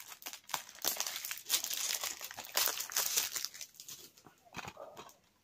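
Plastic packaging crinkling and rustling with many small clicks as a DVD is handled, loudest from about one to three and a half seconds in, then dropping to a few soft handling noises.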